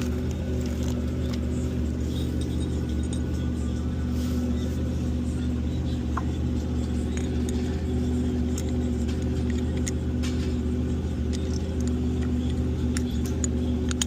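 A steady low mechanical hum with several fixed tones, under scattered light metallic clicks and taps from brake pads and caliper parts being handled.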